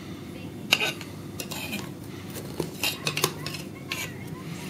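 Metal skate parts, a steel wheel bracket and an aluminium base plate, clinking and clicking against each other as they are handled and fitted together: a string of sharp, separate metal clicks, the loudest under a second in.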